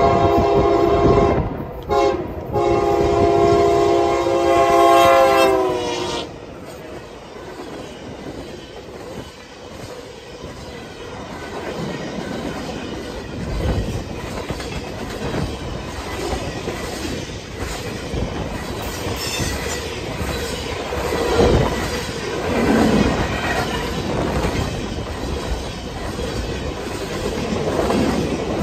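EMD SD70ACe locomotive's air horn blowing a loud multi-note chord, broken twice briefly, sliding lower in pitch as it cuts off about six seconds in. Then freight cars roll past with wheels clattering over the rail joints, growing louder toward the end.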